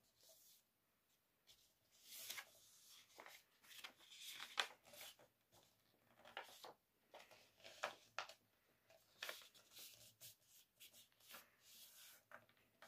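Faint rustling and crinkling of a sheet of paper being folded by hand and its creases pressed flat, in a string of short scrapes, loudest about four to five seconds in.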